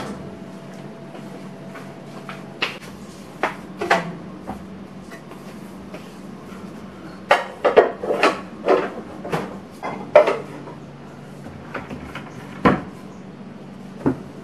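Household objects being handled: scattered knocks and clicks of things being moved and set down, with a quick run of them in the middle, over a faint steady low hum.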